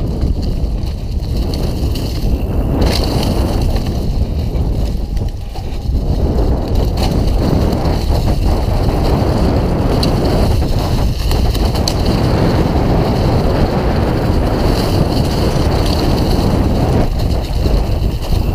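Wind buffeting the microphone while a Mondraker Dune RR enduro mountain bike runs fast down a dirt trail, its tyres crunching over dry leaves, with a few brief knocks and rattles from the bike over bumps.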